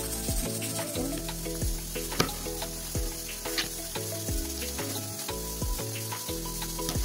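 Background music over a steady hiss, with several sharp, irregular clicks of a kitchen knife cutting green beans on a plastic cutting board.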